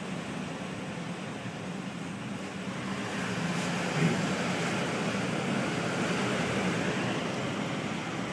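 Car driving slowly, heard from inside the cabin: steady engine and tyre noise with a low hum, growing louder about three seconds in, with one brief knock about four seconds in.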